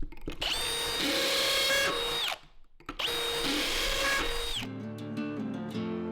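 Power drill running in two bursts of about two seconds each, each spinning up to a steady whine and then stopping, as screws are driven into cabinet framing. Strummed acoustic guitar music starts near the end.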